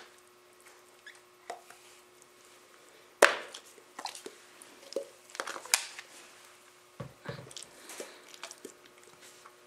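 Dogs playing rough together: irregular knocks, clicks and thumps, with a few brief squeaky noises.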